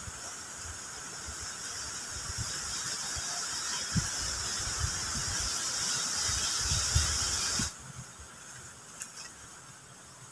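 A steady, high-pitched insect drone, cicada-like, that swells slightly and then stops abruptly about three-quarters of the way through. Scattered soft low thumps and knocks of footsteps and wooden poles being handled sound beneath it.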